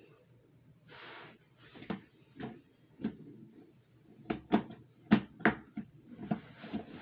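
Parts of an electric fireplace being handled and fitted together by hand: a short rustle about a second in, then a series of irregular knocks and clicks that come thicker toward the end.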